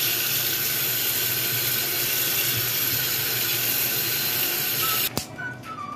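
Tap water running hard into a stainless steel sink, splashing onto boiled pork and chicken feet being washed in a plastic tray: a steady rushing splash that cuts off suddenly about five seconds in.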